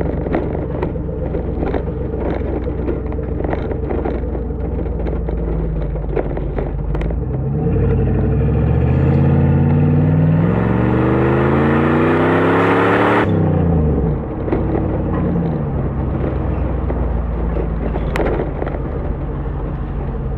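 1997 Jeep Grand Cherokee's 5.2 L V8 through a Magnaflow exhaust, cruising steadily. About seven seconds in it accelerates, the engine note climbing in pitch and loudness for about five seconds. Then the throttle cuts off sharply and the revs fall back to a steady cruise.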